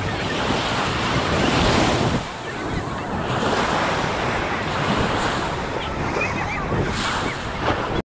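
Ocean surf washing on a beach, with wind buffeting the microphone; the wash eases briefly about two seconds in. A few faint high chirps near the end.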